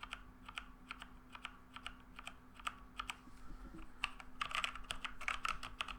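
Logitech G413 mechanical keyboard with Romer-G tactile switches being typed on: quiet, irregular key clicks, coming faster in the second half. The noise comes from fingertips striking the keycaps and keys bottoming out, not from the switches themselves.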